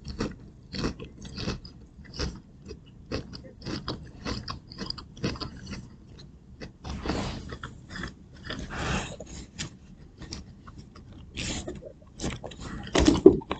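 A person chewing and biting food close to the microphone, with irregular crunches a few times a second.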